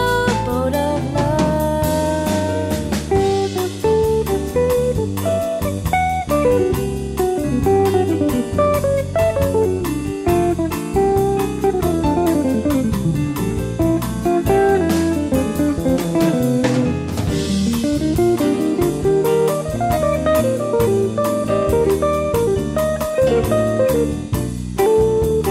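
Instrumental break in a Brazilian jazz (bossa nova) band recording: an electric guitar plays the lead line over double bass, drum kit and piano.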